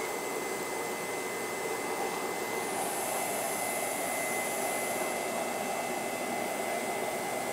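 Standing electric train, the E200-class locomotive E237 coupled to an EMU3000 set, running its equipment at rest: a steady whir of blowers with a thin high whine over it. A higher hiss joins for a couple of seconds about three seconds in.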